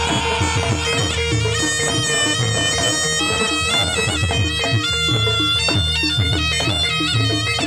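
Jaranan gamelan accompaniment: a nasal reed horn (slompret) plays a bending melody over a steady beat of kendang drums.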